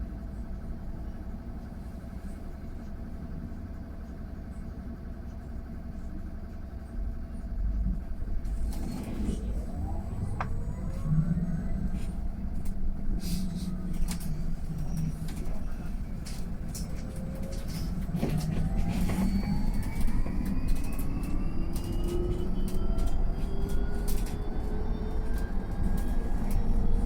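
Mercedes-Benz eCitaro G articulated electric bus pulling away. A steady hum gives way, about eight seconds in, to the electric drive's whine rising in pitch as the bus accelerates. The whine eases, then climbs again in a long rise over the second half, over road rumble and scattered rattles.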